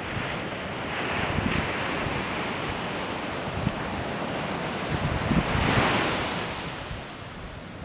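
Sea surf washing onto a sandy beach, with wind gusting on the microphone. The surf swells louder about six seconds in, then dies away.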